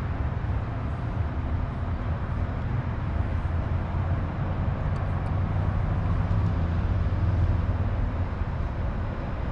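A steady low mechanical rumble and hum, with a few faint ticks about five seconds in.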